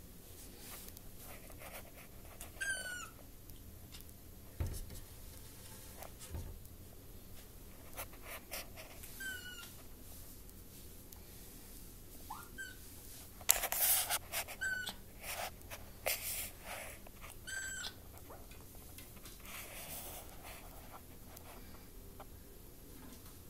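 Kitten mewing in short, high squeaks, about five of them spread out, with rustling and clicking handling noises between and a louder burst of rustling about halfway through.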